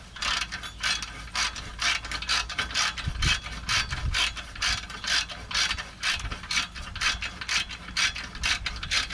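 Socket ratchet clicking in quick back-and-forth strokes, about two to three bursts of clicks a second, as it runs a bolt into the rear flange of a catalytic converter.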